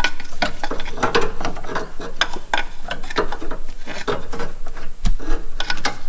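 Metal motor mount bracket clinking, knocking and scraping against surrounding engine parts as it is worked loose by hand in a cramped engine bay. It makes a string of irregular clicks and knocks, with a heavier thump about five seconds in.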